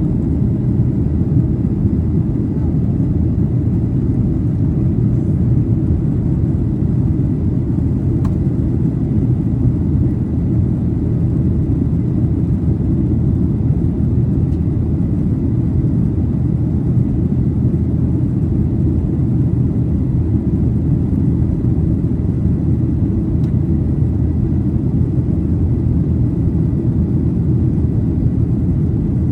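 Steady low cabin rumble of a Boeing 737-800's CFM56-7B turbofan engines and airflow, heard from inside the passenger cabin after takeoff, with a faint steady high tone above it.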